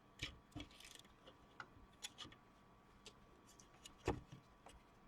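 Light plastic clicks and knocks from handling a 120 mm computer fan and its 3D-printed PLA case, with a louder knock about four seconds in.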